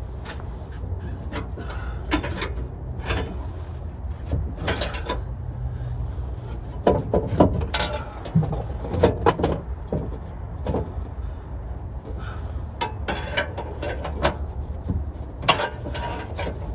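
Hand tools knocking, clanking and scraping against the steel underside of a vehicle as a transmission is worked loose. The sounds come in irregular clusters of short knocks over a steady low rumble.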